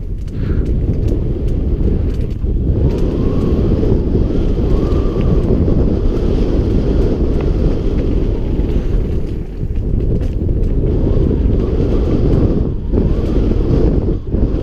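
Wind rushing over the microphone of an action camera on a mountain bike descending a dirt trail at speed, a loud, steady, low rumble that dips briefly a few times.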